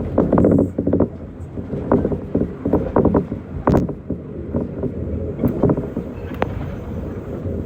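Tokyo Monorail train running along its guideway on rubber tyres: a steady low rumble with frequent short irregular knocks and rattles, and a faint steady whine coming in near the end.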